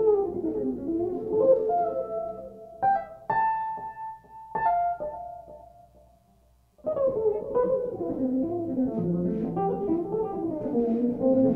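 Jazz trio of electric guitar, electric bass and drum kit playing. Lines of single notes give way to a few held, ringing notes that die away into a near-silent pause of about a second, then the full band comes back in together.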